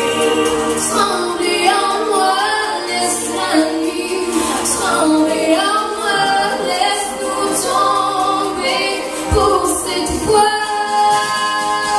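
A woman singing a song into a handheld microphone, holding long notes.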